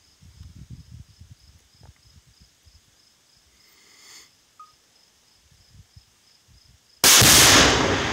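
A half-pound Tannerite charge packed against a log detonates with one sudden loud boom about seven seconds in, dying away slowly over the next seconds. Before it, wind rumble on the microphone and faint, evenly spaced insect chirps.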